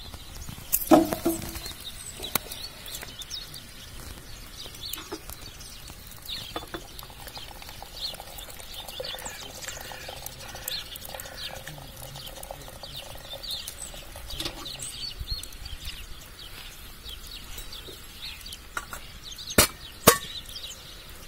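Hot water from a samovar's tap running into a porcelain teapot for a stretch in the middle, with sharp clinks of porcelain and metal near the start and a pair of clinks near the end as the teapot is handled at the samovar's top. Birds chirp in the background.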